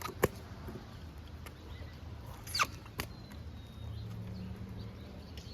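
Kick scooter on wet pavement: a sharp clack at the start, a short squeak and another clack about halfway through, and a steady low rolling rumble.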